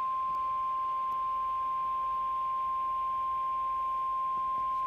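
NOAA Weather Radio warning alarm tone: one steady, loud beep near 1 kHz, the signal that a weather warning is about to be broadcast.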